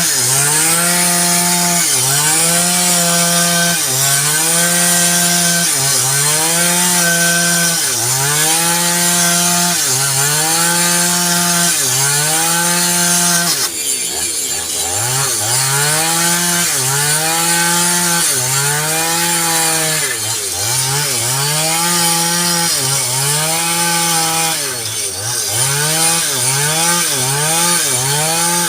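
A small engine-driven machine running at a high, steady pitch that sags and recovers again and again as it is loaded, about every second and a half at first and about once a second near the end.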